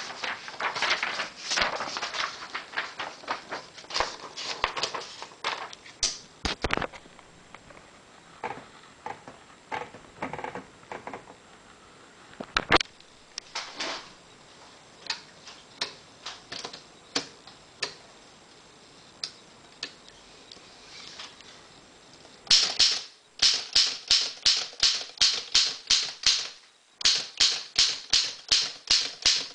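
Typing on a 1909 Underwood desktop typewriter: irregular keystrokes and smaller mechanism clicks at first. About two-thirds of the way through they give way to a fast, even run of loud keystrokes at about three a second, which breaks off briefly and then starts again.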